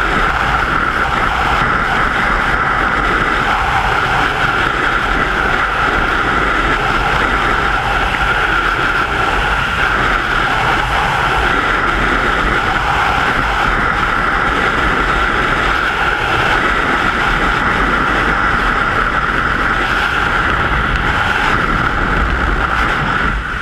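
Loud, steady rush of freefall air blasting over a skydiving camera's microphone, with deep buffeting rumble and a steady whistling tone running through it.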